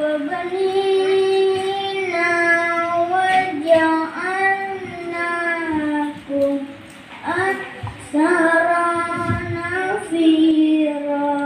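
A young boy reciting the Quran in the melodic tilawah style: long held notes that waver and bend in pitch, with a short pause for breath just past the middle.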